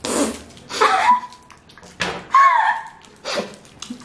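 Four short hissy puffs of breath blown out through pursed lips and a wad of chewing gum while trying to blow a bubble, two of them with a short squeaky sliding tone.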